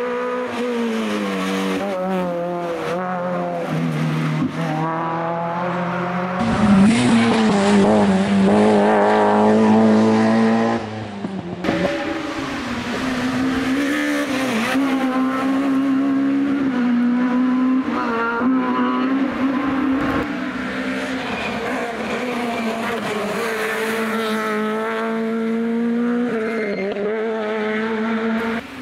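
Rally cars at full throttle on a special stage, one after another, their engines revving up and dropping back again and again through the gear changes. The loudest passage comes about a quarter of the way in.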